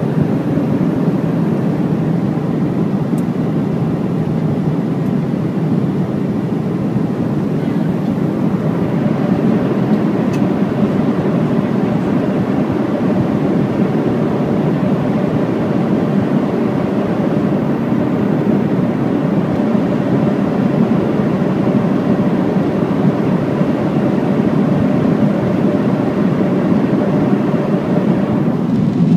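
Steady cabin roar of a Boeing 777-200 in cruise: engine and airflow noise heard from inside the passenger cabin, low and even throughout.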